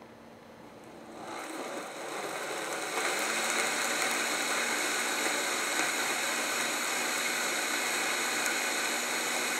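High-powered countertop blender puréeing tomato soup. The motor starts about a second in and runs up in speed, steps up again about three seconds in, then runs steadily at high speed.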